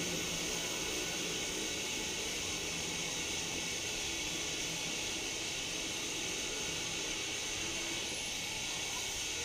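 Steady background hiss with a faint low hum and no distinct events; the screwdriver work on the engine makes no audible clicks or knocks.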